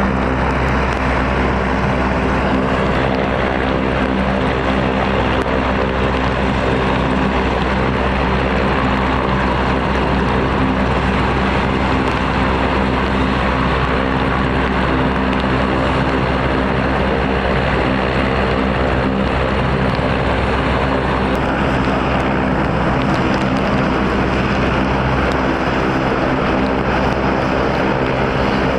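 Westland Merlin HM1 helicopter running steadily, with the even, pulsing hum of its rotors over a broad turbine rush and no change in pitch.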